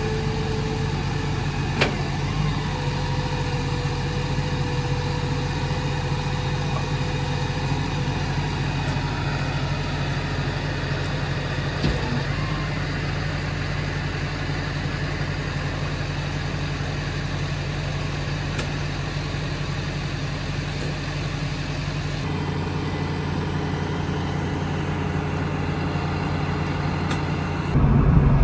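Car engine running steadily with an even low hum and a couple of faint clicks; the sound gets abruptly louder just before the end.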